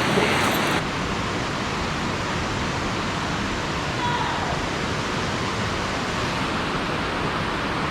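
Steady rushing of water from the river dam, an even roar-like hiss with no breaks; the top end dulls slightly about a second in.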